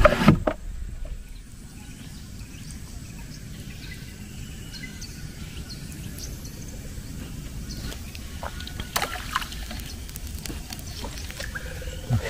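Water sloshing and trickling faintly around a small boat on a river, over a steady low rumble of outdoor noise. A brief sharp knock comes right at the start, and a few light clicks come in the second half.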